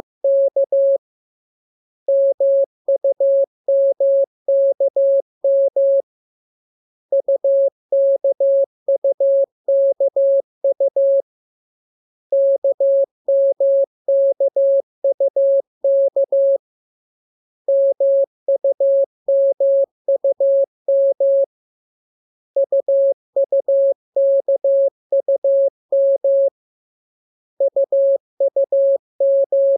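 Morse code sent as a steady, single-pitch beep keyed in dots and dashes, in groups about four seconds long with a pause of about a second between groups. It is receiving practice for learning the letters K, M and U.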